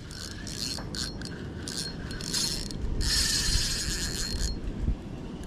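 Spinning reel being cranked to wind in line: a few short whirring turns of the handle, then one longer steady wind about three seconds in.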